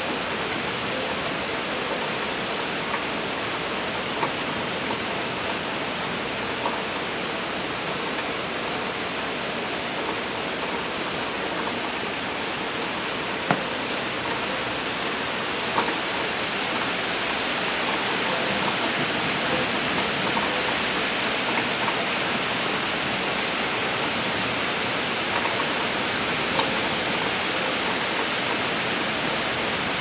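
Steady rain falling, an even hiss with a few sharp taps, the loudest about halfway through.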